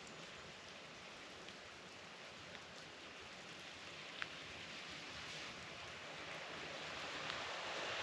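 Steady hiss of sleet and wet snow falling, with a few light ticks of ice pellets or drops striking; one sharper tick about four seconds in. The hiss grows slowly louder near the end.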